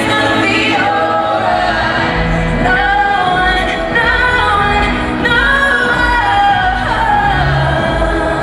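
Live pop concert music: a singer with a band, heard loud through the outdoor sound system from within the crowd.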